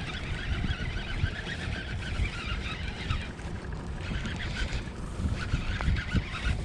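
Wind buffeting the microphone in low, gusty rumbles, over a steady fizzing and lapping of water around a kayak.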